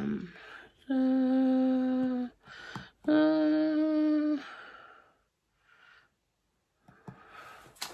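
A woman humming two long held notes, the second a little higher than the first, with soft breaths between them.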